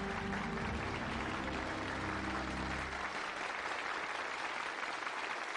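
Studio audience applauding, under a held musical chord with deep low notes that stops about three seconds in while the applause carries on.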